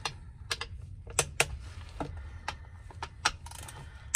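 Hand ratchet clicking in short uneven strokes, about ten sharp clicks, while the oil-pan bolts of a ZF 6-speed automatic transmission are tightened.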